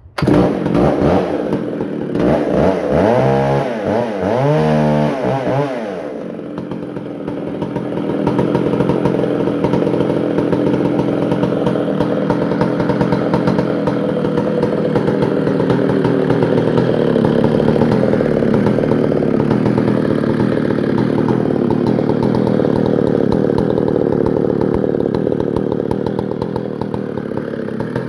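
Vintage McCulloch Super Pro 125 two-stroke chainsaw engine running, freshly repaired and tuned. It is revved up and down several times in the first few seconds, dips briefly, then settles into a steady run.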